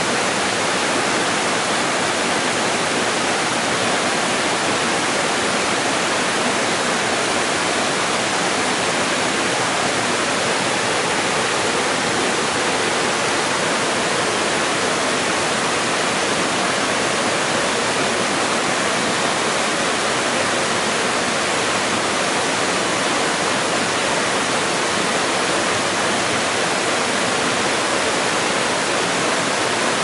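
White water cascading down a rocky creek bed just above a waterfall: a steady, loud, even rush.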